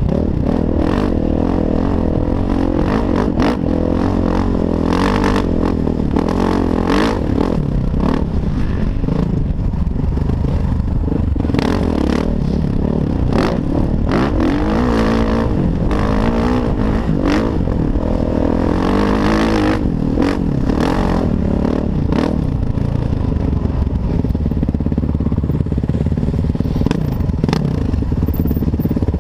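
Kawasaki KX450F single-cylinder four-stroke dirt bike engine running under load on a trail ride, its revs rising and falling with the throttle. Frequent sharp clatters and knocks from the bike over rough ground are mixed in.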